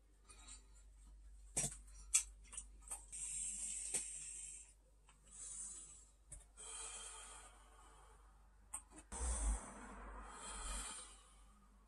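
A man vaping an e-cigarette: several long, breathy draws and exhales of vapour, with a few sharp clicks in the first four seconds and a low rumble about nine seconds in.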